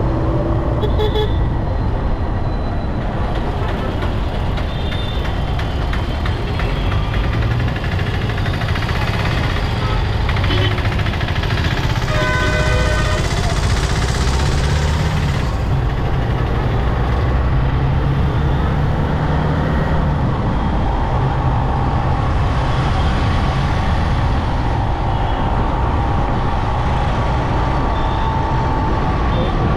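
Steady road noise of a motorbike riding in city traffic, with engines of other vehicles around it. A vehicle horn honks for about a second and a half, about twelve seconds in.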